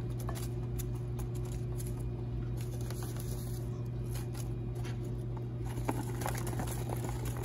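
Light patter and soft clicks of apple slices being dropped by hand onto cabbage in a crock pot, over a steady low hum.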